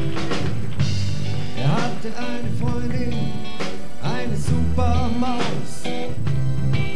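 Music: a lively piece with a steady, changing bass line under a melody that slides and bends in pitch.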